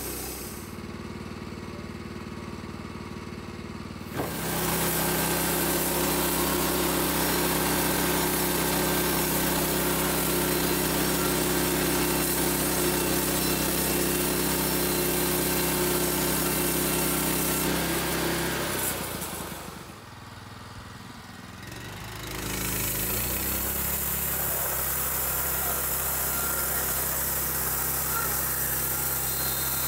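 Vallee Big Red bandsaw sawmill's engine running steadily with the band blade cutting through an eastern white cedar log. Quieter at first, it gets much louder about four seconds in as the cut is under way, drops off briefly around twenty seconds, then picks up and runs steadily again.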